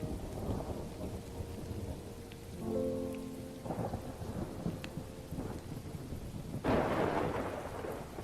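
Thunderstorm: steady rain with rumbling thunder and a sharp thunderclap about two-thirds of the way through that rolls off over a second or so. A short electronic chord sounds about three seconds in.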